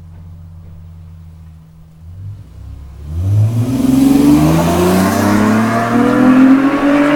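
2002–2003 Acura TL Type-S 3.2-litre V6, straight-piped with the mufflers removed, accelerating hard at wide-open throttle past the microphone. After a faint low hum, the exhaust note comes in loud about three seconds in and climbs steadily in pitch as the revs rise.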